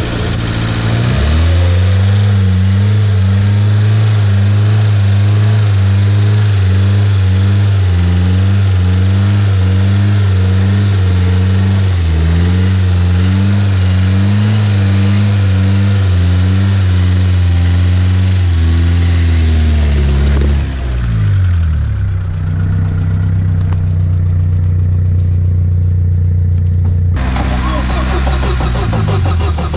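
Off-road vehicle's engine held at high revs under load, its pitch wavering up and down. About 20 seconds in the revs fall away and it runs lower and steadier.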